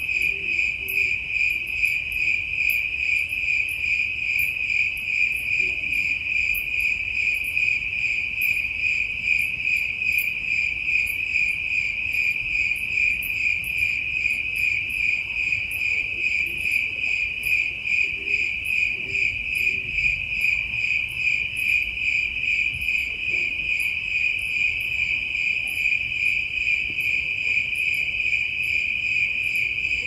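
Night-singing insects in full chorus: a steady, shrill trill on one high pitch, pulsing slightly a few times a second.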